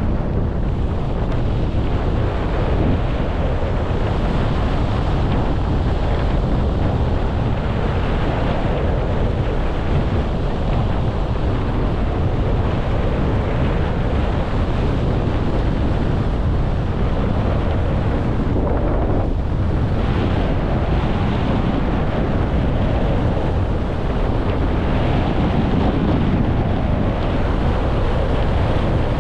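Wind buffeting the camera microphone at skiing speed, with the steady hiss of skis running over groomed snow.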